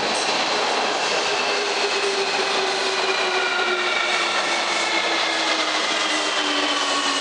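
JR Kyushu 305 series electric train pulling into an underground station and braking. Its electric motor whine, several tones together, falls slowly in pitch as it slows, over a steady rolling noise from the wheels.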